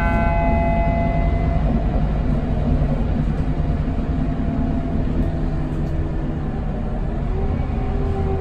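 Scania K280UB city bus heard from inside the passenger cabin while driving: its 9.3-litre five-cylinder diesel and ZF EcoLife automatic gearbox make a steady low rumble. A set of high steady tones fades out in the first second or so.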